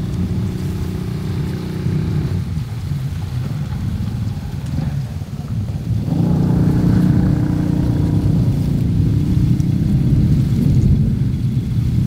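Wind buffeting the microphone with a heavy low rumble, while the engine of a passing motor vehicle hums. One engine fades out about two seconds in; another comes in around six seconds, is loudest soon after, then fades.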